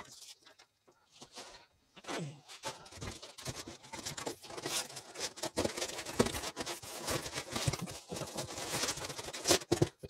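Plastic packaging crinkling and rustling with small knocks as packing material is handled, starting about two seconds in and going on unevenly.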